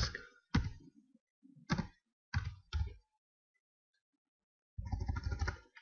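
Laptop keyboard keys being typed: a few separate keystrokes, a pause, then a quick run of keystrokes near the end.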